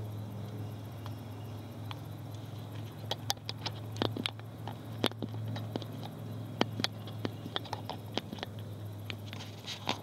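Irregular crackles and snaps of dry leaves and twigs underfoot, footsteps through forest leaf litter, starting about three seconds in, over a steady low hum.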